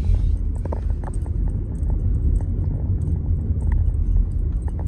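A car being driven, heard as a loud, uneven low rumble of road and wind noise, with scattered light clicks and knocks.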